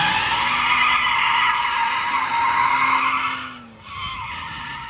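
Drift car's tyres squealing as it slides sideways through a corner, a long, loud screech with the engine note holding steady underneath. The screech drops away about three and a half seconds in, then a quieter squeal carries on as the car keeps sliding.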